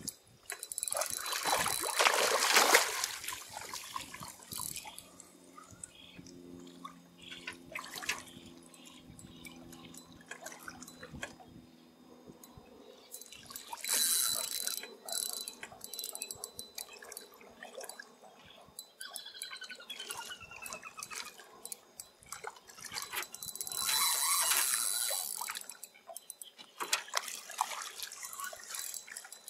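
Lake water splashing and lapping in the shallows around an aluminium boat, with louder rushes about two seconds in, near the middle, and near the end.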